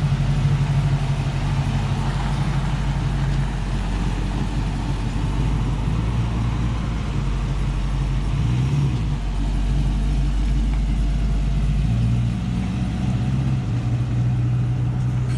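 A motor running with a steady low hum, its pitch shifting about 8 and 12 seconds in.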